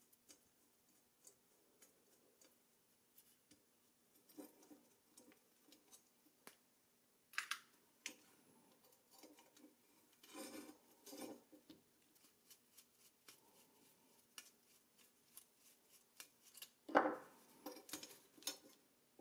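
Small metal clicks, scrapes and taps as a screwdriver works small screws out of a metal toy car's wheel bracket and the parts are handled. The louder knocks come about 7 seconds, 10 seconds and 17 seconds in, the last one the loudest.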